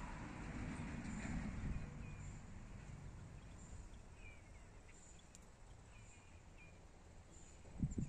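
Quiet garden ambience: a low rumble of traffic fading over the first couple of seconds, then a few faint bird chirps and a faint high insect chirp repeating about once a second, with a low bump near the end.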